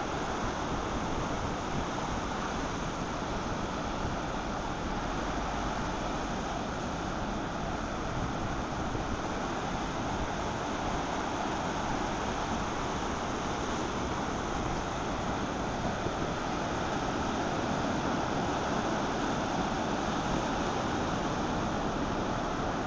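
Ocean surf: a steady, even roar of waves with no single break standing out.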